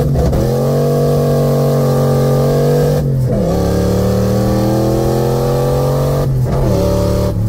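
Turbocharged 5.0 V8 of a 1986 Ford Mustang accelerating with no exhaust fitted, heard from inside the cabin. Its pitch climbs in each gear and drops at three upshifts: just after the start, about three seconds in, and about six and a half seconds in.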